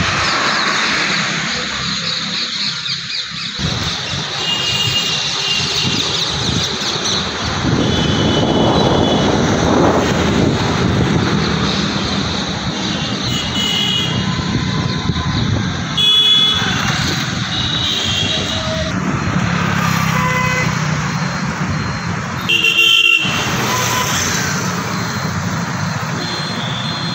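Urban road traffic: motorcycles and cars running past, with short horn toots several times.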